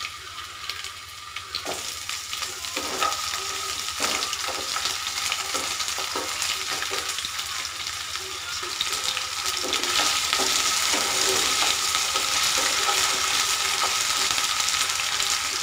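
Diced potatoes frying in hot oil in a non-stick kadai: a steady sizzle, with a wooden spatula scraping and tapping against the pan as they are stirred. The sizzle grows louder about ten seconds in.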